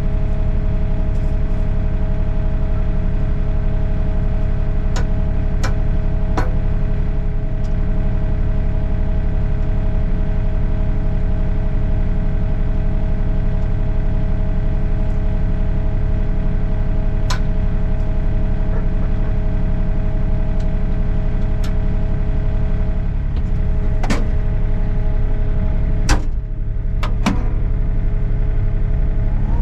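Sany SY35U mini excavator's diesel engine running steadily with a steady whine, broken by several sharp metallic clicks and knocks; the loudest knock comes near the end.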